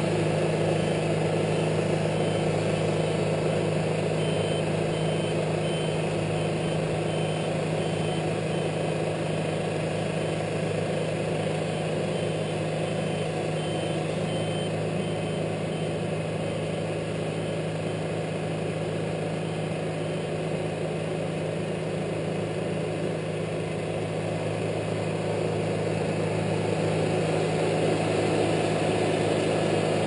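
Wood-Mizer LT70 portable band sawmill running steadily as its band blade cuts a pine log. The sound eases a little in the middle as the saw head travels away along the log, then grows louder again near the end as the head comes back.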